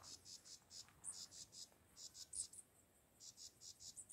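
Faint, high-pitched insect chirping in a quick, slightly uneven run of about four short chirps a second.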